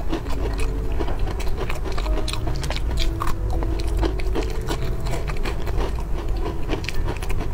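Close-miked chewing of a crumb-coated ice-cream puff: a run of wet clicks and light crunches from the mouth, over soft background music with held notes.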